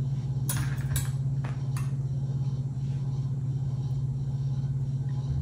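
A steady low hum, like an appliance motor running in the kitchen, with a few light clicks of a fork against a plate between about half a second and two seconds in.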